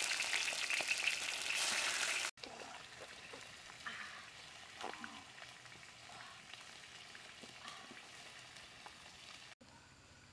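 Fish sizzling as it fries in hot oil in a large wok, a dense hiss that cuts off abruptly about two seconds in. The rest is much quieter, with scattered faint crackles and clicks.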